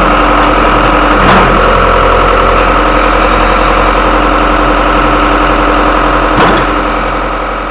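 Hitachi EX60 hydraulic excavator's diesel engine running steadily at idle, with two brief knocks, one a little over a second in and one near the end, where the sound begins to fade out.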